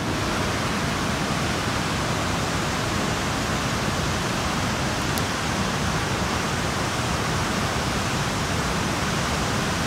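Steady rushing noise of a large river waterfall and the rapids above it, even and unbroken.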